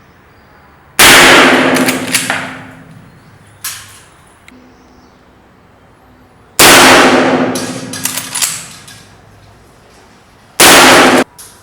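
Three shots from a Marlin lever-action rifle in .357 Magnum, about 5.5 and then 4 seconds apart, each loud and followed by a ringing tail, with smaller clicks between the shots.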